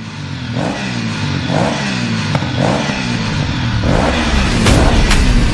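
Electronic attitude ringtone music fading in, built on low tones that glide up and down over and over like a revving engine. Sharp percussive hits, about two a second, come in near the end.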